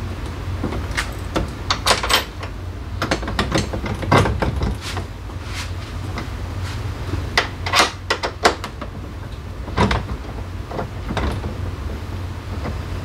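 Irregular sharp clicks, knocks and clatter of tools and parts being handled during scooter maintenance, over a steady low hum.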